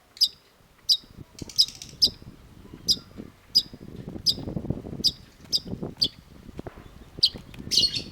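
Long-tailed shrike calling in a series of short, sharp, high notes, roughly one or two a second, with a harsher rasping call near the end. A low rumbling noise runs underneath.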